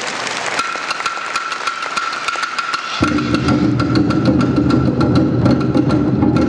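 Awa Odori dance accompaniment: sharp clicking strikes keep an even beat under a held high flute-like note. About three seconds in, a fuller, lower accompaniment comes in suddenly and the music gets louder.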